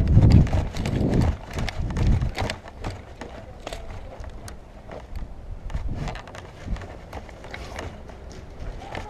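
Footfalls of a person running, with heavy thumps strongest in the first couple of seconds and weaker ones after. Scattered sharp clicks and rattles run through it.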